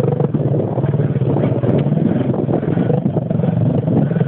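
Trail motorcycle engine running at steady low revs, heard from on the bike, with short knocks and rattles from the rough ground.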